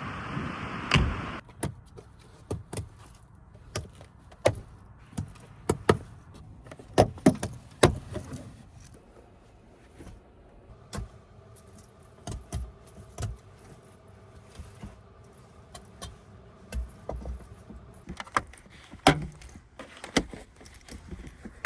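Gusty wind noise on the microphone cuts off about a second in. A long series of scattered clinks, clicks and knocks follows as small hard objects are handled inside the van.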